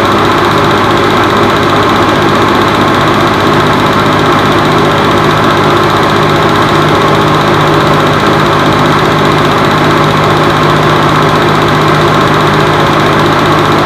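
Steady mechanical whir and hum of a film projector running as the silent home movie plays, a constant low drone under an even hiss.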